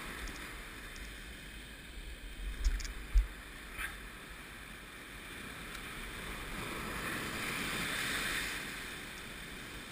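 Surf washing over a rocky shore with wind rushing over the microphone. A wave swells and washes in toward the end. Two short thumps come about three seconds in.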